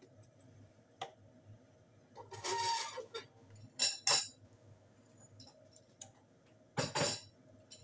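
Close-up eating sounds: a few short slurps of noodles, with wooden chopsticks clicking and scraping in a plastic food tray.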